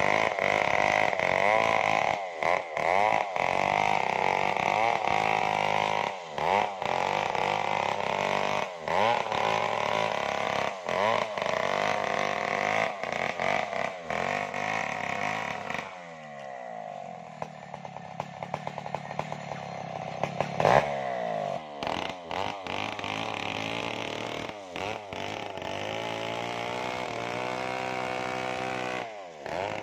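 Stihl chainsaw ripping lengthwise through a waru log, its two-stroke engine running flat out under load, with many brief dips. About sixteen seconds in it drops quieter and its pitch slides down and up for several seconds, then it returns to full cutting speed.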